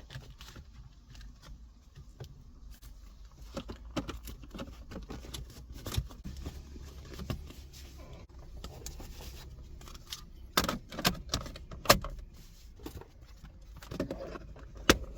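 Scattered clicks, knocks and rattles of hard plastic car interior trim being handled and clipped back into place: the gear-lever gaiter and centre-console surround being refitted. A denser run of sharp snaps comes about two-thirds of the way through.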